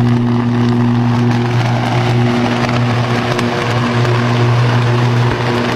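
Electrical short circuit arcing: a loud, steady electrical buzz with dense crackling on top.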